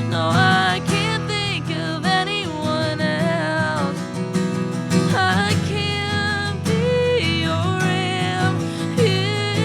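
Band playing a slow song, with strummed acoustic guitar under a melody line that slides and wavers in pitch.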